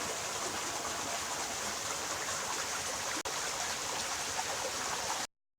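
Steady rush of flowing stream water, with a momentary gap a little past three seconds; it cuts off suddenly near the end.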